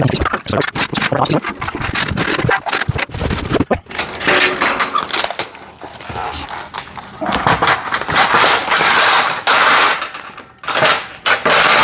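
Cardboard packaging rustling and scraping as the metal parts of a storage rack kit are pulled from their box, with irregular clicks and knocks from the metal pieces being handled. The scraping is loudest near the end.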